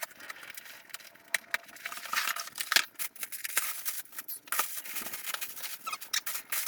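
Parcel of parts being unboxed by hand: rustling and scraping of packaging with many scattered sharp clicks and ticks, irregular rather than rhythmic.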